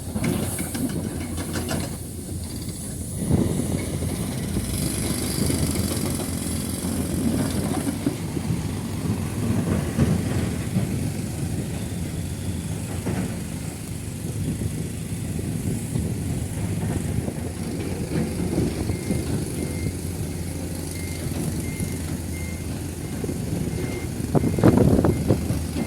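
Heavy diesel construction machinery, an excavator and dump truck, running steadily, with a few louder knocks and the loudest burst of noise near the end. A regular reversing alarm starts beeping about three-quarters of the way in.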